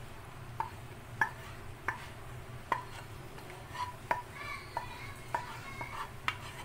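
Wooden spatula scraping a thick cooked paste from a steel bowl into a bowl of flour, with short sharp taps of the spatula against the bowl rims about every half second to a second.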